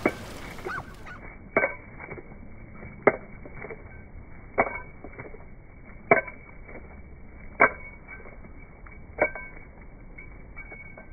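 Slowed-down sound of a large wet dog shaking water off its coat: a dull slap repeats evenly about every second and a half as its ears and coat flap.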